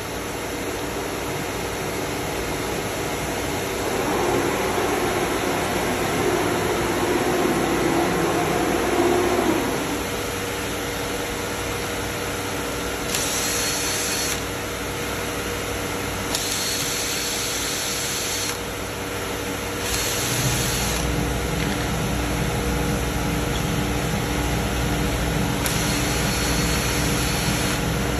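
CNC router machining wood, with its spindle and dust extraction running steadily. A harsher high-pitched cutting hiss comes and goes four times, and a deeper running sound joins about two-thirds of the way in.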